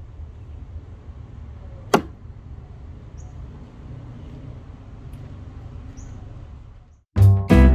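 A single sharp chop from a kitchen axe, about two seconds in, over a low steady rumble. Upbeat music starts suddenly near the end.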